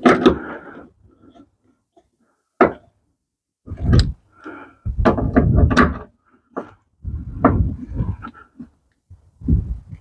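Irregular clunks, clicks and scraping as hand tools and metal parts are worked while the frunk latch's bolts are tightened, with short pauses between bursts of handling.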